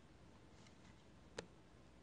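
Near silence: faint room tone, broken by a single sharp click about one and a half seconds in.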